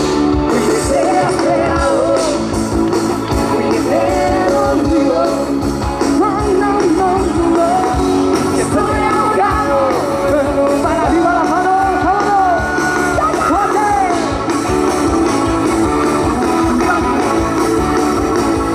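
Live band playing a pop-rock song: guitars over bass and drums, with a lead melody that bends up and down in pitch.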